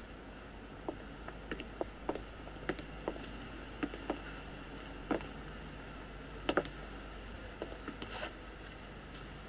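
Slow, irregular footsteps on a hard floor, a string of light knocks and clicks over a steady low room hum.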